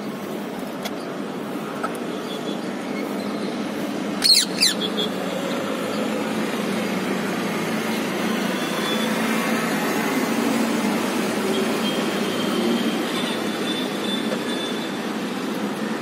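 Steady din of city traffic, with two sharp, loud sounds in quick succession about four seconds in.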